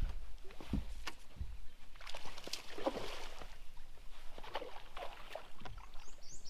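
Water splashing and sloshing at a bass boat's side, with low thumps on the deck, as a bass hooked on a topwater frog is fought to the boat. A bird chirps rapidly near the end.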